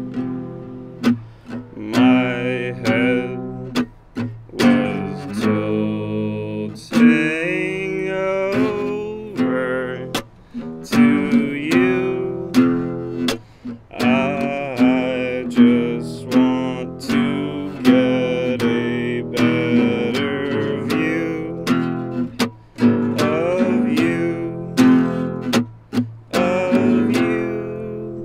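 Acoustic guitar strummed and picked through the song's instrumental close, chords struck in a steady rhythm.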